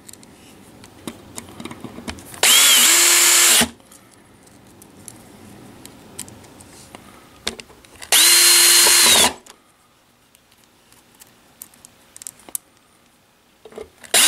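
Cordless drill-driver driving screws into a tweeter's mounting ring in two short runs of about a second each, with a steady motor whine that dips as the trigger is let go. A third run starts right at the end. Light clicks and handling noise fall between runs.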